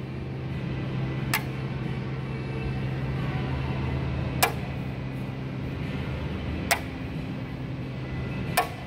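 A small magnet on a cord clicking onto a car's painted steel body panel four times, sharp single clicks a couple of seconds apart, over a steady low hum.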